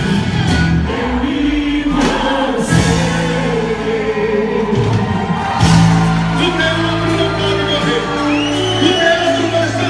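Loud quadrilha junina dance music with singing voices.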